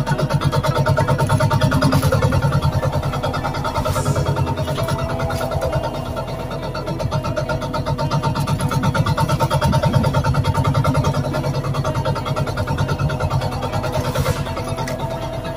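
Small fishing boat's engine running steadily, with a fast, even pulse.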